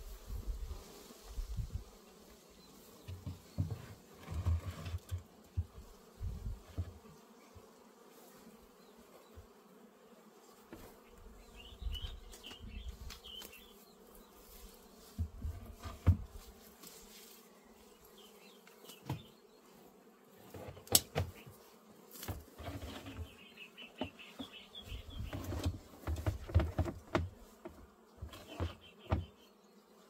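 Honeybees buzzing steadily around an opened hive. There are a few sharp knocks as the wooden hive boxes and lid are handled, loudest about a third and two-thirds of the way through, and occasional low rumbles.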